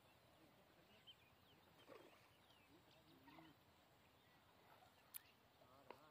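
Near silence: faint outdoor background with a few faint short chirps and a sharp click about five seconds in.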